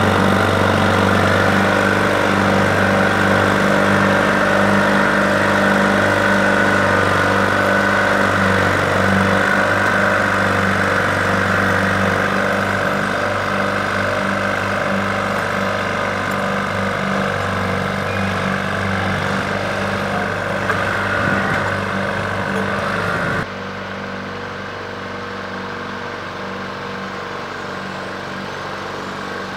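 Bulldozer's diesel engine running steadily, powering the boom as it hoists a roof truss. About three-quarters of the way through, the sound drops suddenly to a quieter, steady engine run.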